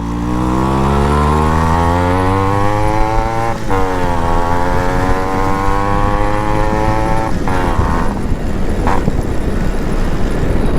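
Yamaha RX 135 two-stroke single accelerating hard, its pitch rising through a gear, dropping at an upshift about three and a half seconds in and again at a second upshift about seven seconds in. After that its note is lost in a steady rushing noise.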